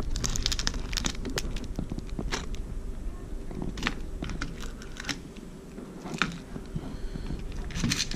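Irregular clicks, clacks and light rustling of hands handling a clear plastic compartment tackle box and the small packs and terminal tackle inside it.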